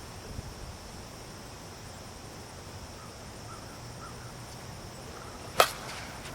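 Steady high-pitched insect drone in the background, with a single sharp crack about five and a half seconds in.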